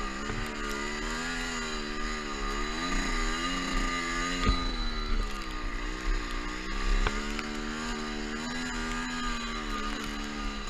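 Two-stroke dirt bike engine being ridden, its revs rising and falling every second or two.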